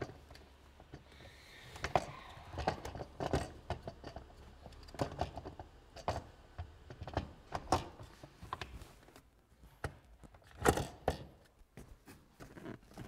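Irregular clicks, knocks and rattles of metal and plastic parts as a Porsche short shift kit shifter assembly is worked by hand onto its mount and cables, with two louder knocks about eleven seconds in.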